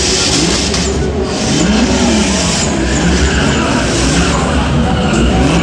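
A drifting car: its engine revving up and down again and again over the steady screech and hiss of its rear tyres spinning and sliding on asphalt.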